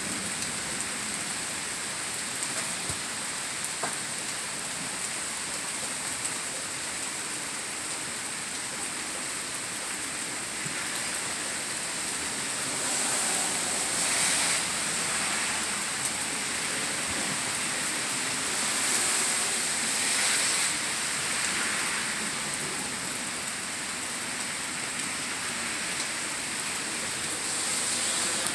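Steady rain falling, a continuous hiss that swells a little louder twice around the middle, with a few faint drip ticks early on.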